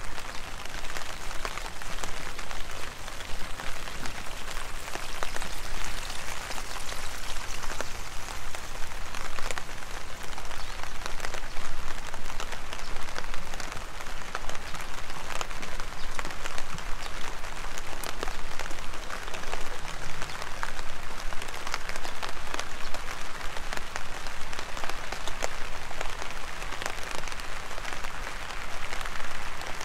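Heavy rain falling steadily: a dense, even hiss scattered with many sharp hits of single drops.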